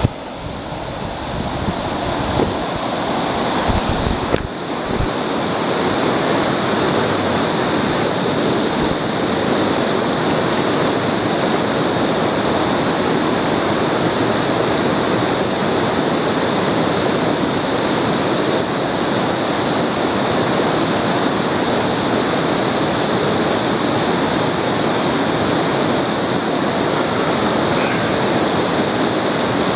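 Steady rush of water coming down into the river, growing louder over the first few seconds and then holding even, with a few low bumps near the start.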